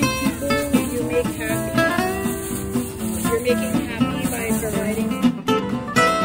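Acoustic guitar music, plucked and strummed, playing steadily; the music changes abruptly about five seconds in.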